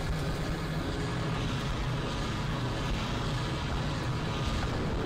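Steady, dense rumble of a battle scene's sound effects, fire and smoke after explosions, with no separate blasts standing out.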